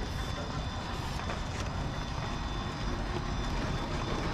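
Electric motors and gearboxes of 1/10 scale RC crawler trucks running as they climb a wooden ramp: a steady mechanical rumble with a faint high whine.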